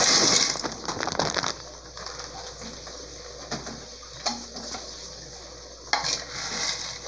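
Dry fusilli pasta pours from its bag into an aluminium pressure cooker, rattling in for about the first second and a half, followed by a few light knocks. Near the end a wooden spoon starts stirring the dry pasta in the pot with a scraping rattle.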